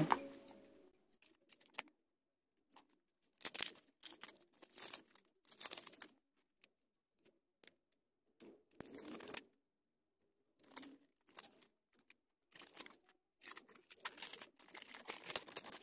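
Yellow insulating tape being torn and cut off a small transformer's coil, a faint crinkling and tearing in short, irregular bursts.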